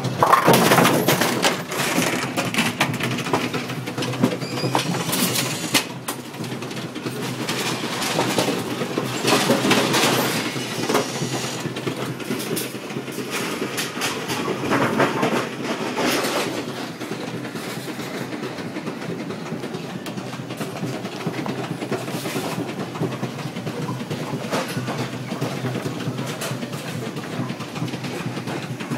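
AMF 8230 bowling pinspotter running: a steady mechanical clatter and rattle, with louder spells of clattering about a second in, around ten seconds in and around fifteen seconds in, then settling into an even run.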